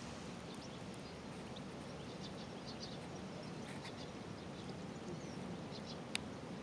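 Quiet outdoor background: a steady low hiss with a few faint, short high chirps or ticks, and one sharp click about six seconds in.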